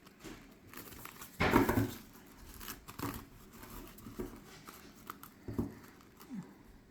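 Tarot cards handled and gathered into a deck before shuffling: faint scattered rustles and light taps, with a louder rustle about a second and a half in and another short one near the end.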